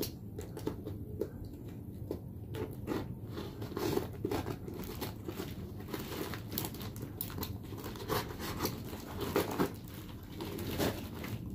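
Packing tape and cardboard tearing and crackling as hands rip open a small taped parcel box, with the plastic wrapping inside crinkling. Irregular rips and crackles come in quick succession.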